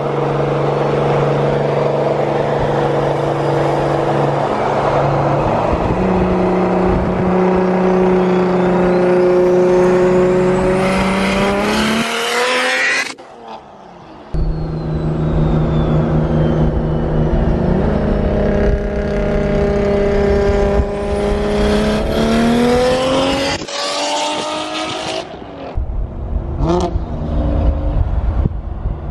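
Single-turbo BMW N54 straight-six through a VRSF 3.5-inch exhaust, pulling hard under full throttle. Its pitch climbs steadily through two long pulls, each cut off abruptly, then settles to a lower, uneven rumble with sharp crackles near the end.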